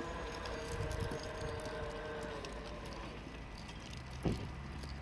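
Railway level-crossing barrier arms rising once the train has cleared, with a steady mechanical hum that slowly fades. A single thump comes about four seconds in as the arms reach the upright.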